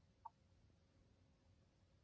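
Near silence, with one faint click about a quarter second in.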